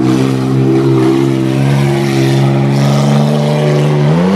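Truck engine running hard at steady high revs, rising in pitch about four seconds in as the truck is driven over a dirt jump.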